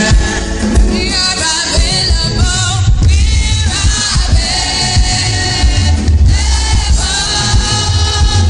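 Gospel worship song: a choir singing over music with a heavy bass.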